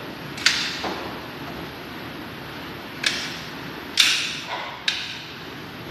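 Handgun shots: four sharp reports at uneven spacing, each trailing off in a short echo.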